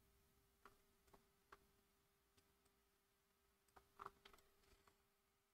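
Near silence: faint room tone with a steady low hum and scattered faint clicks, bunched most closely about four seconds in.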